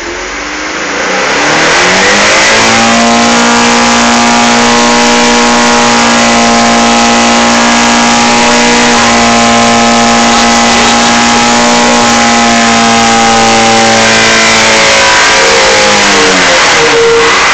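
Loud Chevrolet Monza 1.8 four-cylinder engine revving up over about two seconds and holding at high revs. It drops back near the end with a brief blip.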